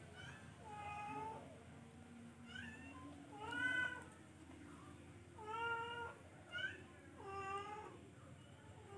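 Young cats meowing repeatedly, about seven meows: some short and high, others longer and drawn out.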